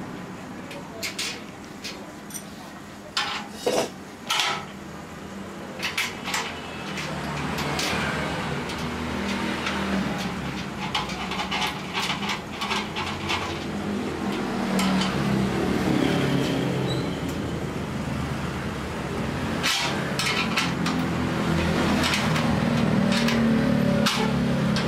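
Metal stand parts clanking and knocking as they are handled, with several sharp knocks in the first few seconds. From about seven seconds in, a low engine-like rumble builds and grows louder toward the end.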